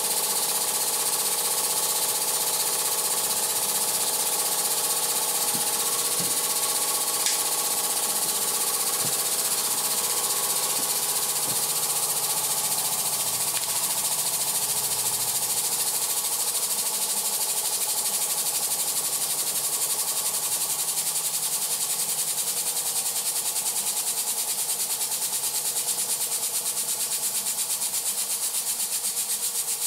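Weeden 902 toy steam engine running steadily: its oscillating cylinder exhausts in a fast, even chuffing with a strong steam hiss. The rapid beat becomes more distinct in the second half.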